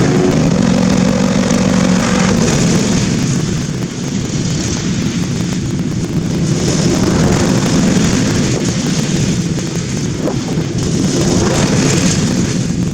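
Briggs & Stratton V-twin engine on a Husqvarna zero-turn mower running steadily with its muffler fitted, under an even hiss, with small swells in loudness.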